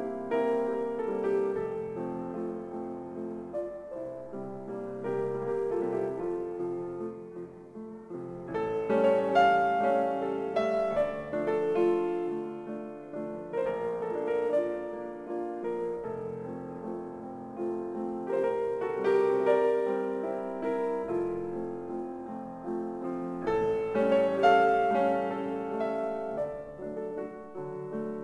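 Piano music: a flowing run of notes over chords that swells louder several times.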